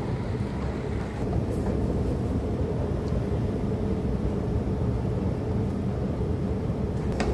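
Steady low rumble and hum of an Elizabeth line underground train, growing a little louder about a second in, with a brief click near the end.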